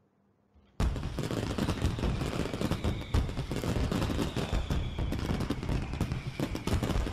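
Fireworks going off: a dense, continuous run of bangs and crackles that starts suddenly about a second in, with a faint falling whistle partway through.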